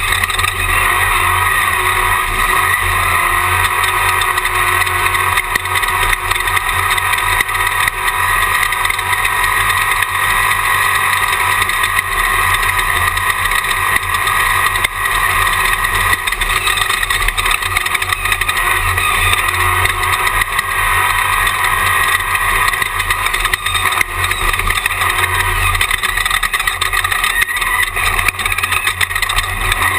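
Jimco Class 1 off-road race car's engine running hard at a steady high speed, heard from inside the car.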